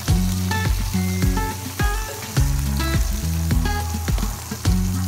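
Background music with a steady beat and a repeating bass line, over the steady hiss of a pot of spaghetti at a rolling boil.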